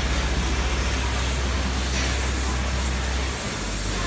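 Steady factory machinery noise from an automated assembly cell: an even din with a strong low hum, the hum briefly dropping away a little after three seconds in.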